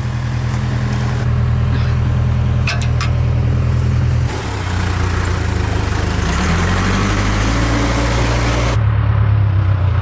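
Backhoe loader's engine running steadily, its pitch rising for a couple of seconds past the middle as it revs up. A few light clicks sound about two and three seconds in.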